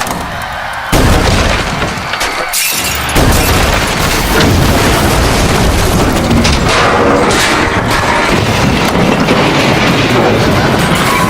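Film sound effects of a ship's hull breaking apart: a sudden heavy boom about a second in, another about three seconds in, then a continuous din of crashing and rending.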